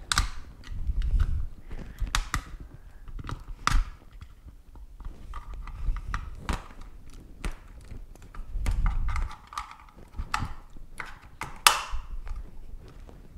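A small screwdriver clicking, tapping and scraping against a wireless mouse's plastic shell as it is pried at the side buttons, with irregular knocks from handling the mouse.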